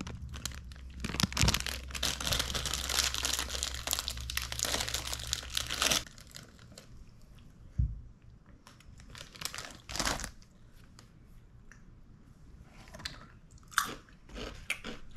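Foil snack bag of Jumpy's chicken-flavour potato snacks crinkling loudly as it is handled and opened for about six seconds, then crunchy bites and chewing of the puffed potato snacks, with a few sharper crunches near the end.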